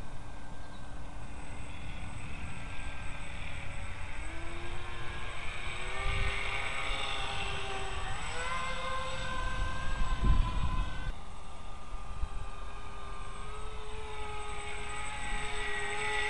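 The twin electric motors and counter-rotating propellers of a small Depron push-pull model plane whine overhead. The pitch steps up about four and again about eight seconds in as the throttle is opened, then drops about eleven seconds in. Low rumbling wind buffets the microphone and is loudest around ten seconds in.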